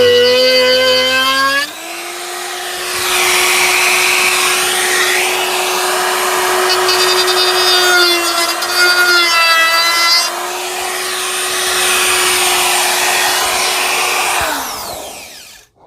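Electric jigsaw running and cutting through a wooden worktop to enlarge a sink opening: a steady motor whine with a rasping cutting noise. The pitch and level change near the start, and near the end the saw switches off and winds down with a falling whine.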